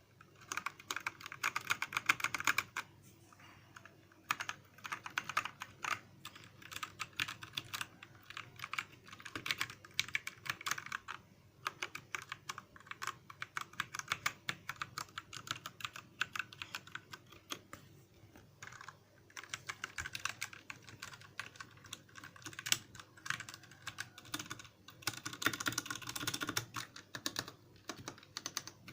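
Typing on a Royal Kludge RK61 60% mechanical keyboard: fast runs of keystroke clacks, with a couple of brief pauses.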